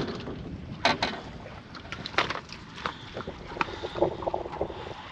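Wind buffeting the microphone aboard a small fishing boat at sea, with several sharp knocks and clatters on the boat.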